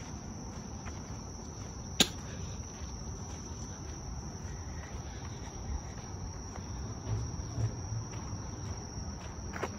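Insects trilling steadily in a high, even tone, with one sharp loud click about two seconds in and a few soft footfalls near the end.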